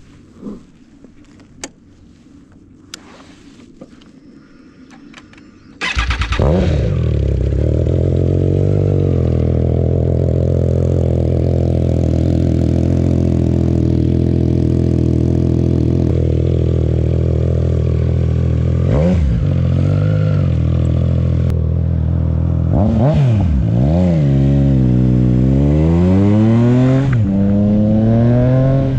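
A Triumph Trident 660's inline three-cylinder engine, breathing through a GPR full exhaust with its dB-killer baffle removed: a few faint clicks, then the engine starts about six seconds in and idles steadily. Near the end it is revved several times in quick blips, rising and falling.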